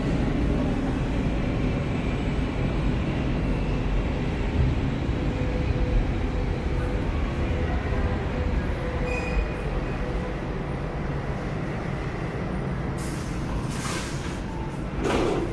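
Lisbon Metro train running on its rails: a steady low rumble, with a loud hiss near the end.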